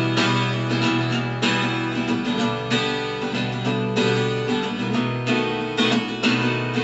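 Twelve-string acoustic guitar, strung with only eleven strings, strumming chords with a new stroke about every second or so and the chords ringing on between.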